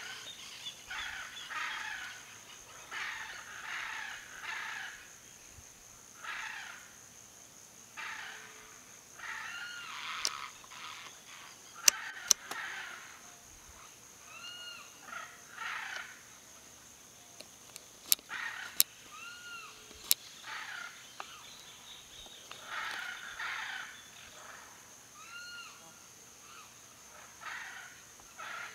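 Background birds calling: short arched whistled notes repeated every few seconds and rougher chattering bursts, over a steady high-pitched hum. A few sharp clicks, the loudest sounds, come around the middle.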